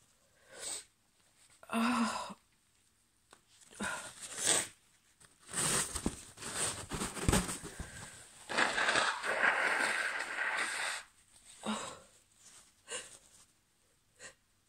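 A woman's allergy sneezing fit: a string of short sneezes and sharp breaths, with a longer rushing breath lasting a couple of seconds about nine seconds in.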